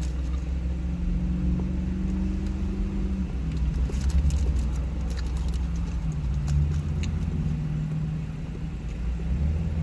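Car engine idling, a steady low hum heard from inside the cabin, with a few faint clicks.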